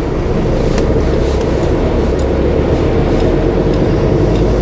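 HGV's engine and road noise heard from inside the cab: a steady low drone while the truck drives on, with a few faint light clicks.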